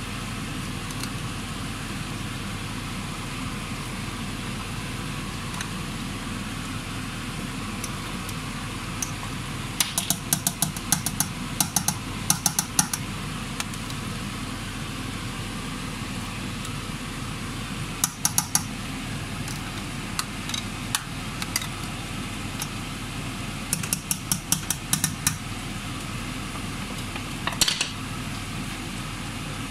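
A utensil clicking against a stainless steel pot in several bursts of quick taps, as lumps of blended yam paste are dropped into the soup to thicken it, over a steady background hum.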